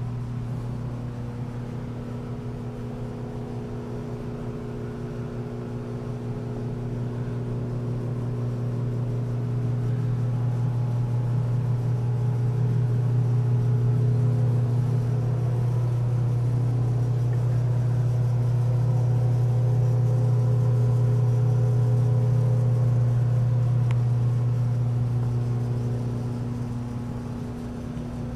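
Steady low machine hum with a few faint overtones, growing louder about a third of the way in and easing again near the end.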